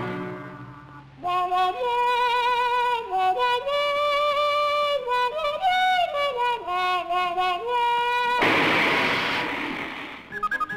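A brass horn played as a slow melody of held notes with a wavering vibrato. About eight seconds in, a firework rocket launches with a loud rushing whoosh that fades over about two seconds.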